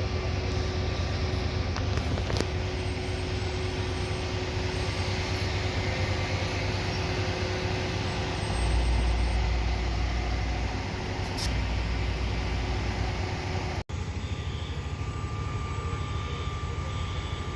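Large truck engine running with a steady low rumble, most likely fire apparatus. The rumble grows louder twice for a second or two in the second half.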